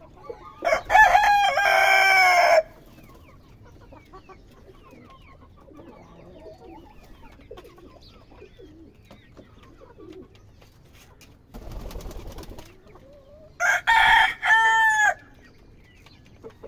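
Ayam Cemani rooster crowing twice: one long crow about a second in and a second, broken-up crow near the end, with soft clucking from the hens in between.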